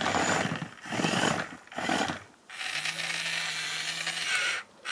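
Toy remote-control excavator's small electric motors and plastic gearbox running: three short runs, then a steadier run of about two seconds with a low hum.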